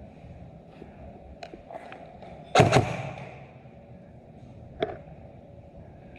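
Two sharp knocks in quick succession about two and a half seconds in, the loudest sound here, then a single lighter click near five seconds, over steady background noise.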